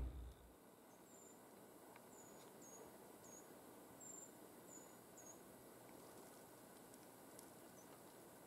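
Near silence: faint background hiss with a run of about eight very short, high chirps in the first five seconds.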